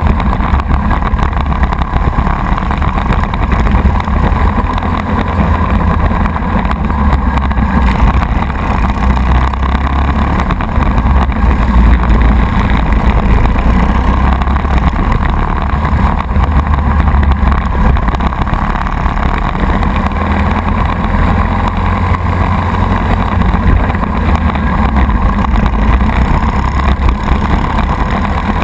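Briggs & Stratton Animal single-cylinder four-stroke kart engine running hard at race pace, heard onboard the kart, loud and steady with no let-up.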